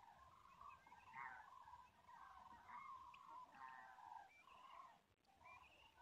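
A flock of common cranes calling in flight: a faint, continuous chorus of many overlapping calls, with a brief lull near the end.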